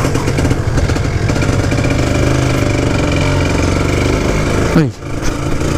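Kawasaki Ninja SE two-stroke motorcycle engine running under way, its pitch fairly steady. Near the end the revs drop sharply as the throttle is closed, with a brief dip in loudness.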